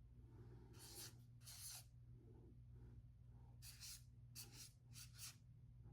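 Faint scratching of a pen drawing on paper: two strokes about a second in, then a quicker run of short strokes in the second half, over a low steady hum.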